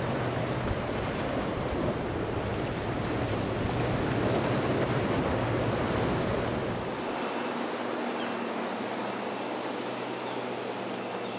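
Surf and wind rushing over the microphone, with the steady hum of boat engines underneath. About seven seconds in, the deep wind rumble drops away, leaving a quieter, steadier engine drone.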